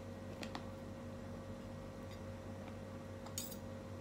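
Faint chewing, with a few soft mouth clicks over a steady low hum in a quiet room.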